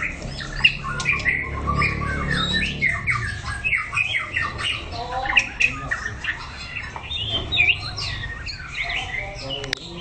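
White-rumped shama singing a fast, unbroken stream of chirps, whistles and sliding notes: the continuous 'kéo lửa' song that keepers train these birds for.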